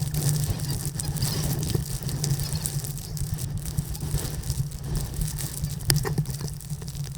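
An engine running steadily at constant speed, with crackling noise and scattered clicks over it.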